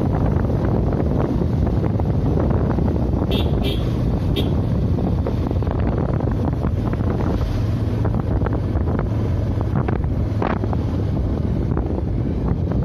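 Wind rushing and buffeting over the microphone on a moving motorcycle, with the bike's engine running steadily underneath.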